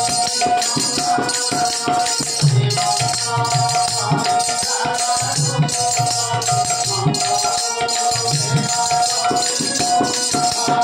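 Devotional instrumental passage without singing: small hand cymbals ringing in a steady rhythm over the thumps of a barrel drum, with held notes from a harmonium.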